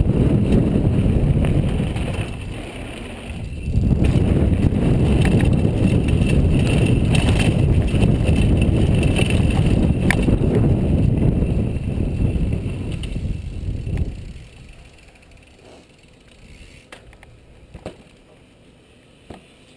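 Wind buffeting a helmet-mounted camera and a mountain bike rattling over a dirt trail at speed, easing briefly about three seconds in. About fourteen seconds in it dies down as the bike slows to a stop, leaving a few faint clicks.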